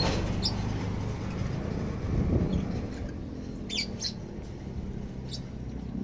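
Lovebirds giving a few short, high-pitched squeaky chirps, scattered and brief, over a steady low rumble.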